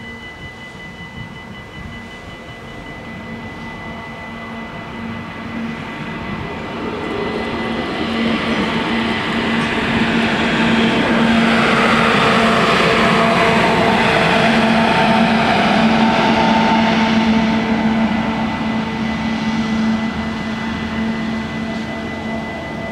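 A Stadler GTW diesel multiple unit passes over the level crossing: its running noise builds, peaks around the middle and fades toward the end. Under it, the crossing's warning bells keep up a steady ringing tone.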